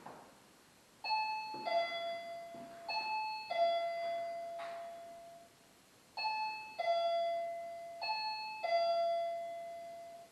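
Motion-detector alarm sounding its electronic two-tone chime, ding-dong ding-dong, twice over with a pause of about two seconds between. The chime signals that the sensor has been triggered.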